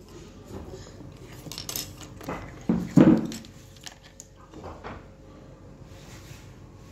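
Hard objects knocking and clattering on a wooden tabletop as a small child handles them: a few separate knocks, the loudest about three seconds in.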